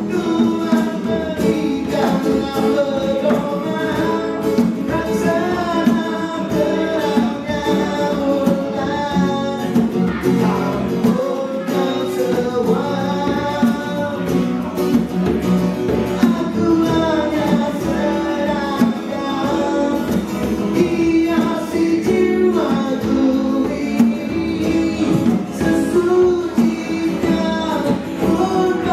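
Live acoustic band music: a man singing to a strummed acoustic guitar, with a djembe hand drum keeping a steady beat.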